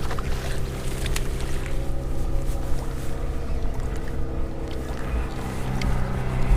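Boat motor running steadily with an even, low hum, with a few light clicks over it.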